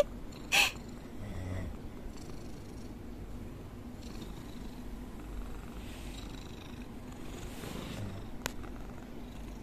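Pet cat purring steadily, up close, while being stroked. There is a short, louder sound about half a second in and a single sharp click near the end.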